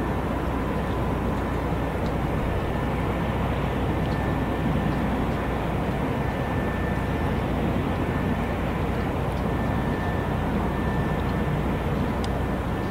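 Steady low rumble and hiss of harbour ambience, with a faint steady high whine.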